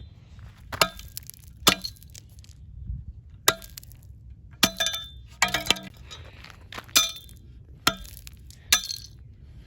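A tool striking a pair of eyeglasses about eight times at uneven intervals, each blow a sharp clink of glass and metal with a short rattle after it.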